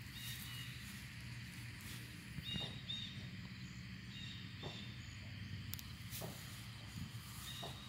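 Quiet outdoor background with a steady low hum and a few short, high chirps, plus a few soft steps on grass.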